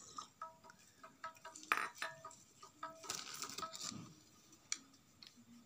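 Faint scattered clinks and knocks of small objects being handled, with a sharper click a little under two seconds in.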